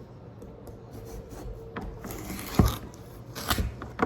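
Knife cutting into a whole watermelon: rasping scrapes and crunches through the rind, with a heavy thump about two and a half seconds in and two more sharp crunches near the end.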